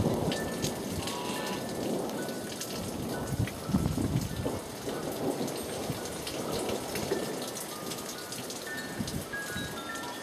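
Steady rain falling and pattering on surfaces, with many separate drops ticking.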